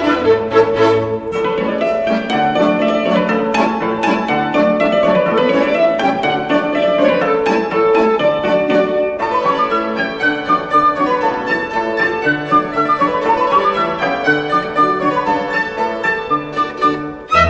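Instrumental background music: a violin melody over piano and plucked strings, with quick runs of notes and a brief drop in level near the end.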